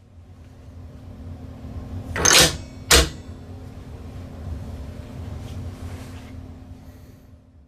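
A short scraping rush, then a single sharp knock about three seconds in, over a steady low hum, with a couple of faint ticks later.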